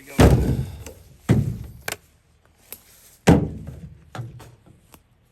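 Heavy wooden thunks: three loud hits about one to two seconds apart, each dying away over most of a second, with lighter knocks in between.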